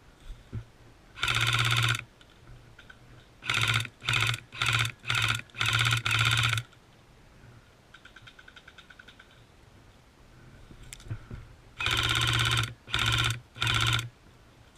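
Airsoft gun firing short full-auto bursts of rapid, evenly spaced shots. There is one burst about a second in, six quick bursts in a row a few seconds later, and three more near the end. A fainter string of rapid shots comes near the middle.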